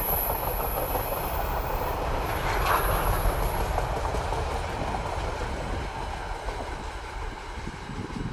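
Freight train's container flat wagons rolling past, steel wheels running on the rails, with a brief wheel squeal about two and a half seconds in. The noise thins toward the end as the last wagon passes.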